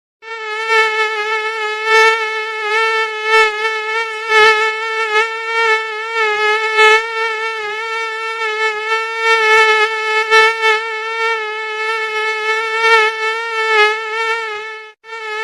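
Mosquito in flight: a steady, high-pitched whining buzz from its wingbeat that wavers slightly in pitch and loudness, breaking off briefly near the end.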